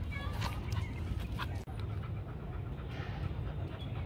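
Six-month-old Rottweilers panting, over a steady low rumble, with a few light clicks in the first second and a half.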